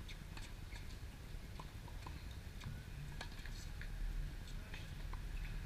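Faint steady low rumble with scattered light ticks and taps at irregular times.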